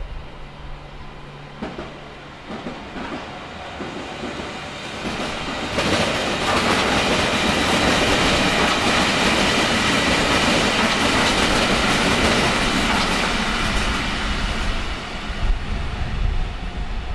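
A Berlin S-Bahn electric train passing on a nearby track: wheels running over the rails with a high whine on top. It builds up over the first few seconds, is loudest for about eight seconds in the middle, then fades with a few low thumps near the end.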